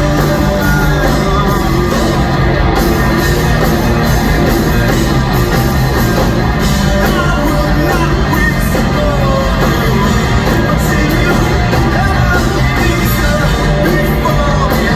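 Live rock band playing loud, with drum kit, bass and electric guitars, and a male lead singer singing over it.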